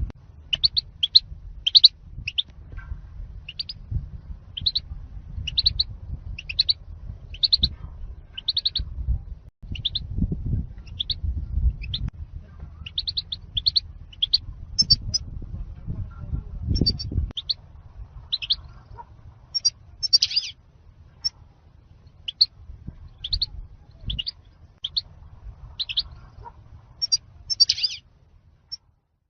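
European goldfinch chirping: a long run of short, high, bright notes, about one to two a second, over a low background rumble.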